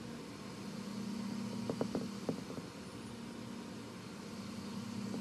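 Steady low background hum with a quick cluster of three short knocks about two seconds in.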